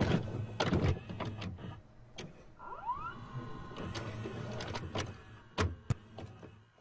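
Mechanical clicks and clunks from a small motorised mechanism, with a short rising whine about a third of the way in that settles into a faint steady tone, over a low hum; it all cuts off just before the end.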